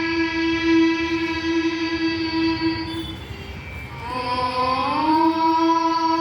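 A conch shell (shankha) blown in long held notes, each a single steady horn-like tone. About three seconds in the note stops for a breath, then it starts again low and slides up to the same pitch, as a conch is sounded to open a Hindu prayer.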